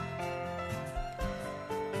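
Background music: held instrumental notes over a steady beat.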